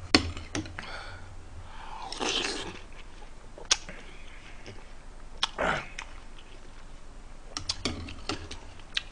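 Eating sounds: a metal spoon clicking against a small bowl as watermelon pieces are scooped up, with chewing and wet mouth sounds in between. Near the end there is a quick run of clicks.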